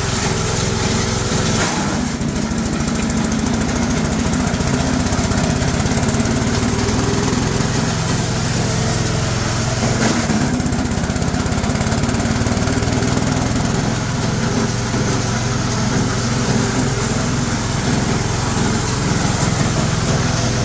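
G-30 chopper-shredder machine running steadily at speed while grinding small bamboo and lamtoro branches. There are a couple of brief sharper noises, about two seconds in and again about ten seconds in.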